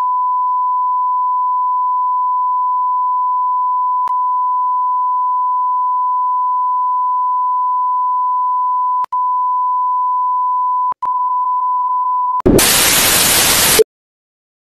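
A steady electronic test tone at one pure pitch, with a click about four seconds in and two brief dropouts later on. Near the end it gives way to a loud burst of television static that cuts off suddenly.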